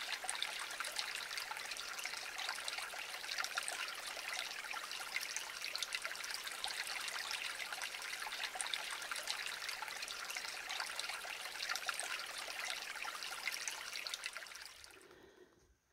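Shallow lake-outlet creek trickling over stones, a steady rush of water that fades away near the end.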